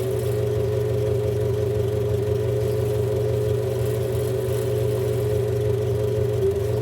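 Ford Corcel's 1.4 Renault-derived four-cylinder engine idling steadily.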